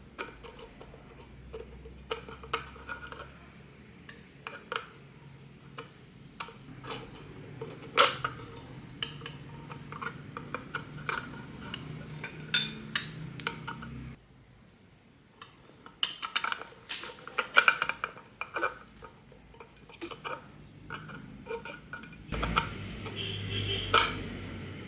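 Dishes, cutlery and glassware clinking as they are handled, in scattered sharp knocks and clinks with a short quieter gap partway through.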